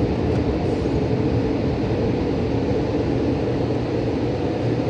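Automatic car wash machinery running around the car, heard from inside the cabin: a steady, heavy rushing noise that is very noisy.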